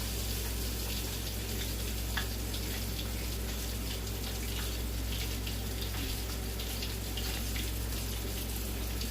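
Chicken breast pieces frying in hot oil in a pan: a steady sizzle with small scattered crackles, over a steady low hum.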